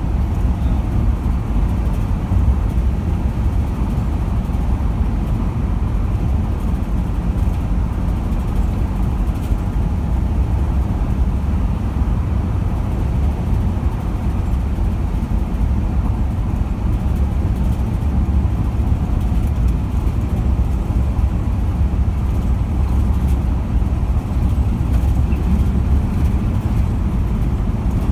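Steady low road and engine noise of a car driving at freeway speed.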